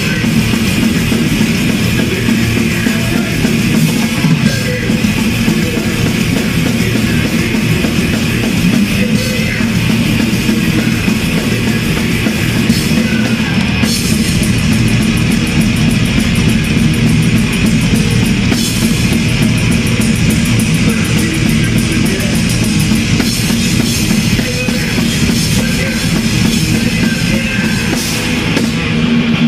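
Thrash metal played at full volume, driven by fast drum kit playing with cymbals, with a stretch of rapid, evenly spaced strokes about halfway through.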